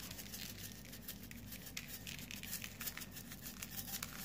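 A metal spice shaker filled with a coarse dry rub of sea salt, sugar and ground spices being shaken over raw pork medallions: a faint, irregular run of small ticks as the grains rattle in the shaker and scatter onto the meat and board.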